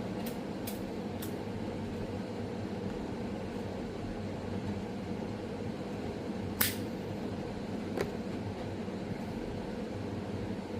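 A steady mechanical hum in a small room, with a few faint clicks in the first second and a sharper click about two-thirds of the way through, followed by another shortly after.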